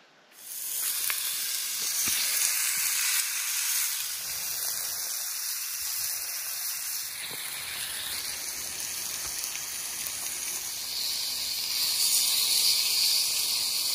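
Thick-cut pork belly sizzling on a hot grill plate: a steady hiss of frying fat that comes in suddenly about half a second in.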